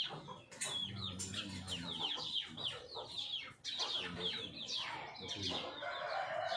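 Parrot-beak long-tail aseel chickens calling: a busy run of many short, high, falling peeps, one after another.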